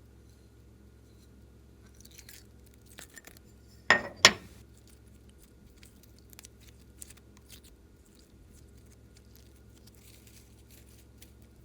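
Small handling sounds of slime-making: faint scattered crackles and ticks, with two sharp clicks in quick succession about four seconds in.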